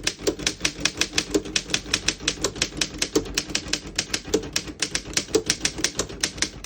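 1926 Underwood No.5 manual desktop typewriter being typed on: a quick, fairly even run of sharp key strikes, several a second, each typebar clacking against the platen.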